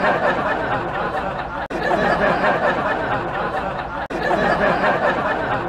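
Many voices chattering and laughing together in a dense jumble, with no single voice standing out. The sound breaks off sharply twice, about a second and a half in and again about four seconds in, then carries straight on.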